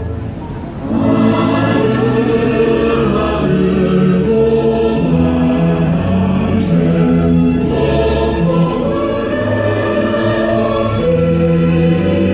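Loud music with a choir singing, its held notes changing about every second; it dips briefly at the start before coming back in.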